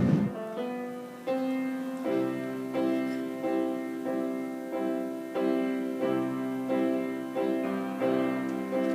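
Piano playing the introduction to a hymn: steady chords struck at an even pace, about one every two-thirds of a second.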